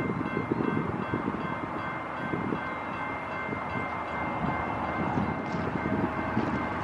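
BNSF freight train's lead diesel locomotive approaching, a steady low engine rumble with several steady high-pitched tones over it.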